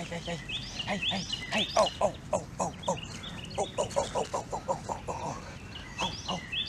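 Songbirds chirping over and over in short, high, arched notes, with a quick run of short lower sounds, about four or five a second, through the middle.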